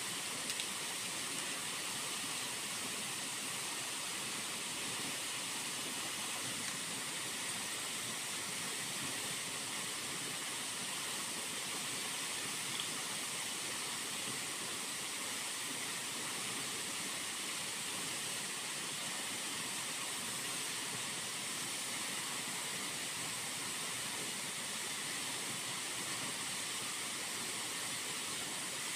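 Pot of noodle soup at a rolling boil on a portable gas stove: a steady hiss of bubbling broth and steam.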